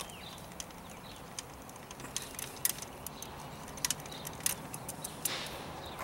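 Scattered light metallic clicks and taps of a spark plug socket on a long extension bar as a stuck, carbon-fouled spark plug is unscrewed from the VW 2.0 TSI engine, with a faint steady hum under it. The clicks start about two seconds in and come irregularly, a few a second.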